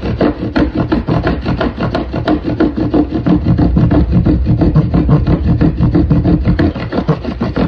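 Bow drill worked fast and hard: a mule fat spindle spun by the bow grinds into a pinyon pine fireboard, a rapid rhythmic wooden rubbing that rises and falls with each back-and-forth stroke of the bow. The spindle is being pushed for friction to build a coal.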